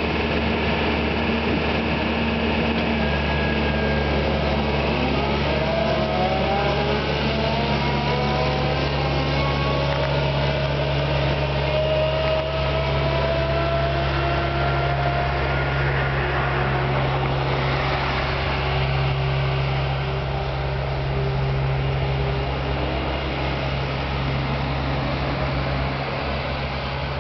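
Diesel engine of an Atlas 1404 K rail/road wheeled excavator running steadily as the machine drives along the road. It makes a low hum, with thin whines that glide up and down in pitch.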